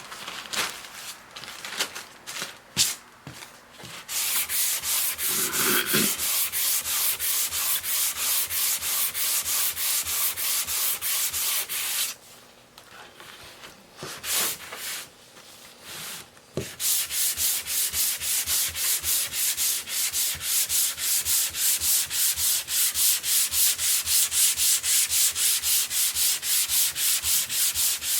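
Sandpaper rubbed over wood by hand in quick, even back-and-forth strokes. About a third of the way in the strokes stop for a few seconds, with a few light knocks, then start again.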